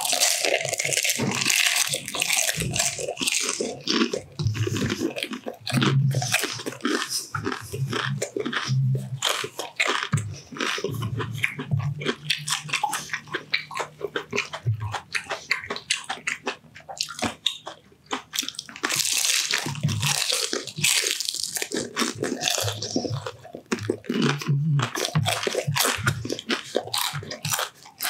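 Close-miked crunching and chewing of crispy deep-fried pork intestine (chicharon bulaklak), a dense run of crackling bites throughout. The heaviest crunching comes in the first few seconds and again about two-thirds of the way through.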